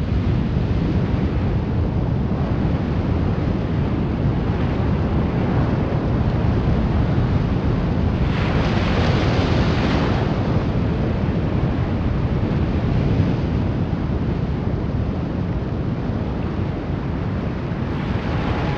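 Small waves washing onto a sandy shore, with wind rumbling on the microphone. A brighter, hissier wash of surf comes in about halfway through.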